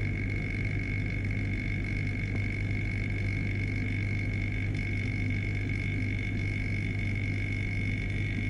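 Vacuum pump of an investing machine running steadily while a flask of wet investment plaster is degassed under vacuum. It is a constant hum with a steady high whine over it.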